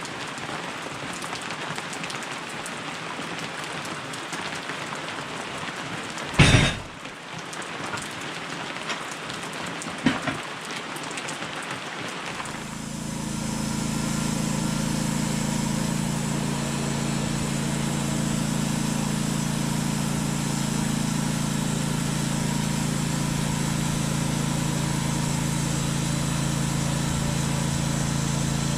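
Steady rain falling, broken by one sharp knock about six and a half seconds in and a smaller one about ten seconds in. About twelve seconds in, a steady low engine-like hum with several held tones starts and carries on over the rain.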